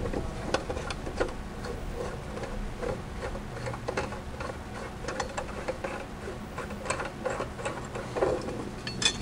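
Hand ratchet clicking in short irregular runs of light ticks as it backs the loosened mower blade bolt out.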